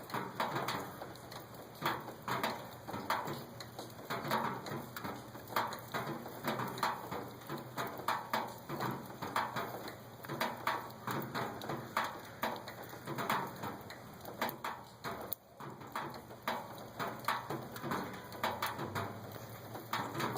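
Rain falling, with many irregular drops tapping close by.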